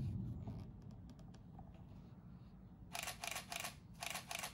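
Camera shutter clicks in two quick runs of about four, one about three seconds in and another a second later. A low rumble fades out at the very start.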